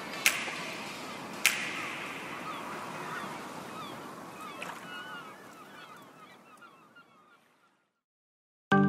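Background music track ending: two sharp percussive hits early on, then a fading wash with faint chirping glides that dies away to about a second of silence. A new music track with a steady beat starts just before the end.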